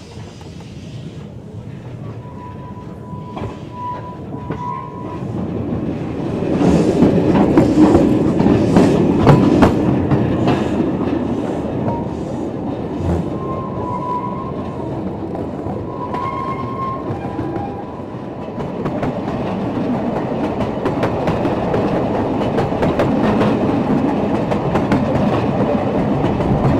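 Narrow-gauge slate wagons rolling along the track, clattering with repeated clicks from the wheels on the rail joints. The noise grows much louder about six seconds in, and a thin steady squeal, typical of wheel flanges on a curve, comes twice.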